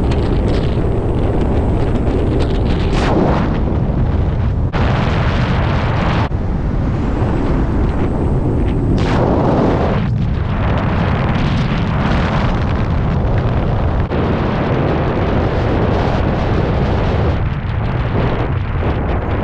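Heavy wind buffeting the microphone of a camera held out on a selfie stick over an open-top Chevrolet C8 Corvette as it drives, making a continuous rough rumbling noise.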